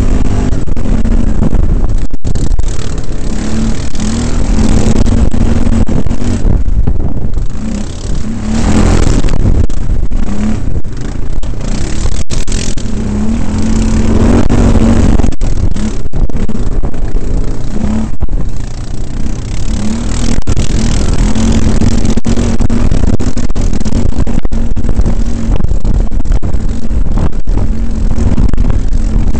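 Quad bike (ATV) engine running loud at speed on a dirt track, heard from the rider's own machine, the engine note breaking up and returning under heavy noise.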